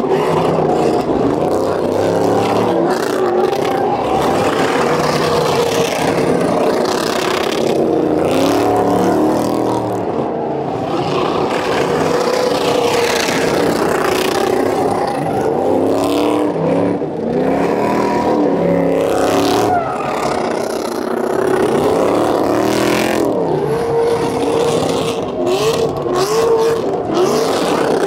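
Pickup truck engines revving hard during burnouts, their pitch repeatedly rising and falling as the drivers work the throttle while the rear tyres spin on the pavement.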